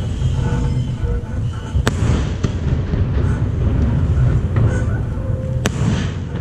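Fireworks going off: two sharp bangs, one about two seconds in and one near the end, over a steady low rumble.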